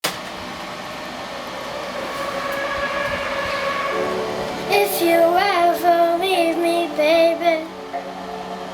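Song intro: sustained chords that slowly grow louder, then a wordless sung melody from about five seconds in that stops shortly before the end.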